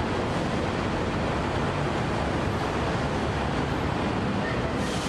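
Steady rumble of road traffic, with a brief higher hiss near the end.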